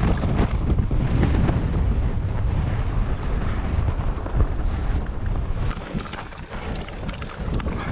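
Wind buffeting an action camera's microphone with a loud, gusty rumble while a mountain bike's 29+ tyres roll over a loose dirt and gravel track, with many small ticks and crunches from the trail. The wind eases briefly near the end.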